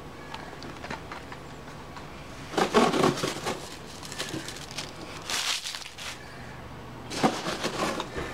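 Plastic diecast-car display boxes being handled, rustling and clicking in three short bursts: about three, five and a half, and seven and a half seconds in.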